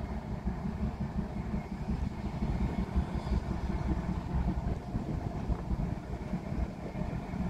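Locomotive engine running steadily at a distance as it approaches slowly, under a low rumble of wind on the microphone.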